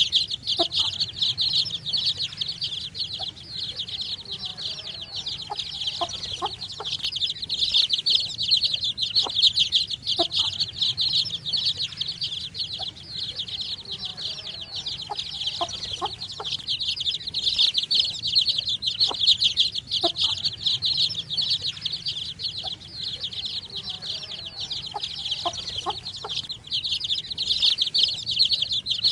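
A brood of baby chicks cheeping continuously, many rapid high-pitched peeps overlapping, with a few lower short calls now and then.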